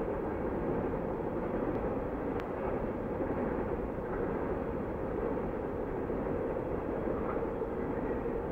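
Distant Canadian National freight train rolling by, heard as a steady echoing rumble.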